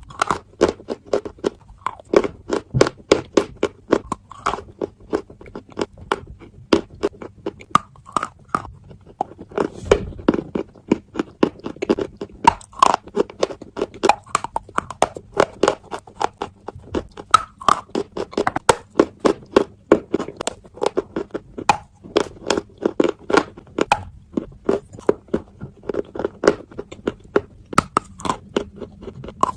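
Sticks of chalk being bitten and chewed: a dense run of sharp, dry crunches, several a second, coming in clusters.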